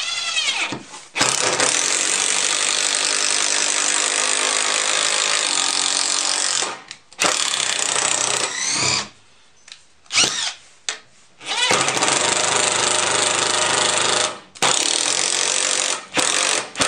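Bosch 12V impact driver driving a screw into a wooden 2x4. The motor whines up, then the impact mechanism hammers steadily for about five seconds, followed by several shorter bursts. The freshly reassembled impact mechanism is working again and driving the screw instead of stalling.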